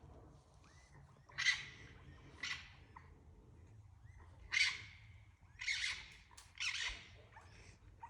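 Five harsh, hissing screeches from an unseen animal up in a tree, each under half a second, about a second apart, the last two somewhat longer.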